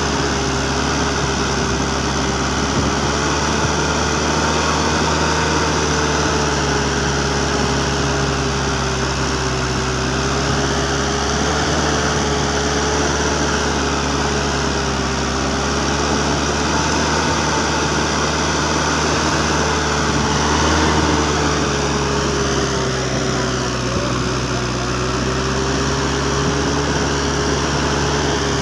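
Engine of a homemade Cambodian farm truck running steadily, with a whine that wavers slightly in pitch.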